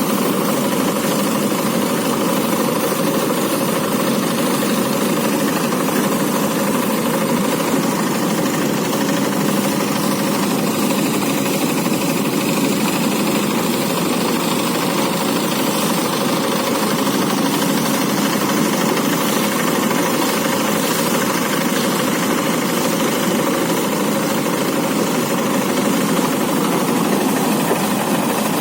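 Engine-driven rice threshing machine running steadily under load, its engine and threshing drum making a loud, unbroken mechanical noise.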